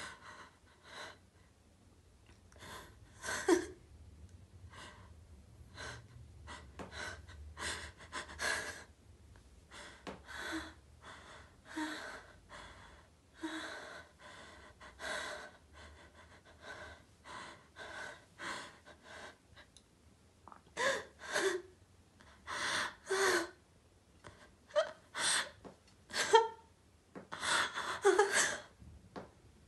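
A woman's heavy, ragged breathing: a long irregular run of sharp gasps, some with a short voiced catch, growing louder toward the end.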